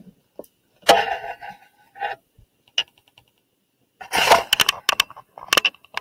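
Paper rustling as a picture book's page is turned and the book is handled: a short rustle about a second in, then a run of crackly page and paper handling sounds from about four seconds on.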